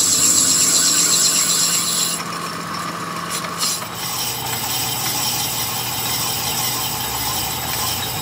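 Metal lathe running, turning a motorcycle wheel hub as the cutting tool machines its rim, with a steady motor hum under a hissing cut. The cutting sound is strongest for the first two seconds, then changes, with a few clicks before it settles into steady running.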